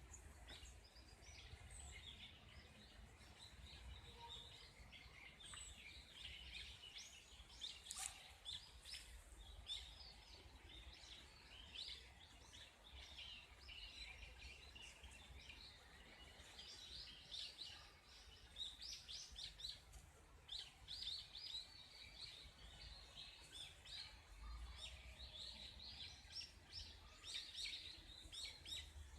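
Faint chorus of many small songbirds, a dense run of short, high chirps and twitters, over a low steady rumble of wind.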